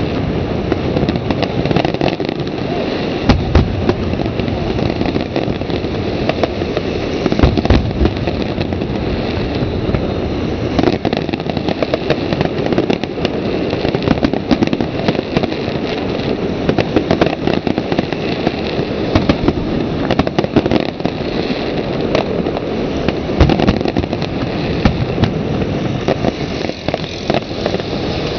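Aerial fireworks display: a dense barrage of shells bursting, overlapping booms over a continuous crackle. A few heavier booms stand out, around three and eight seconds in.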